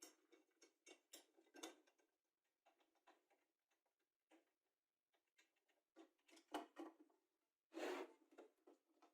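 Faint, scattered clicks, taps and scraping rustles of small objects being handled on a work surface, with a louder knock about six and a half seconds in and a louder scrape near the end.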